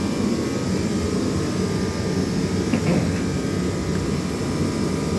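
Air compressor running steadily while the backhoe's rear tire is inflated to seat the bead on the rim.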